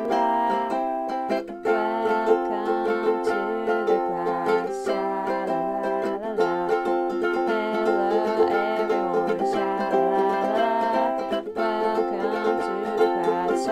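Intro music playing throughout, a melodic tune with a steady level.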